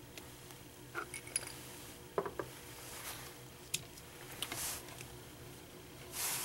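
Laboratory glass beaker and ammonia electrode probe being handled on a bench: scattered light clinks, taps and knocks, with two brief swishes, the louder one near the end.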